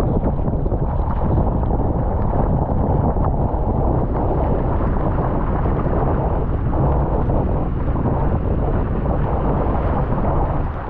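Strong 25 to 35 knot wind buffeting the microphone as a loud, steady, low rumble.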